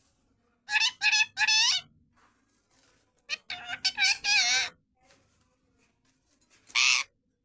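Parrot vocalising in short, high, pitch-bending calls: three quick ones about a second in, a rapid run of calls around the fourth second, and a single harsh screech near the end.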